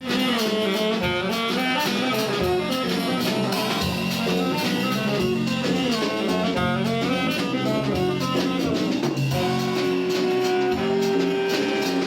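Jazz band playing: a horn melody over a drum kit, cutting in abruptly.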